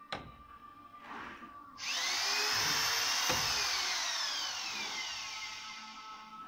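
Click right at the start, then about two seconds in the high-speed drill-type motor on a tool unit of an Urban FAS 330 PVC window-frame machine starts up loudly, its whine rising and then falling in pitch while the whirring slowly fades.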